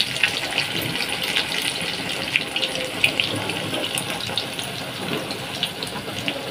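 Egg omelette batter frying in hot oil in a wok: a steady sizzle with scattered crackling pops, easing slightly in loudness.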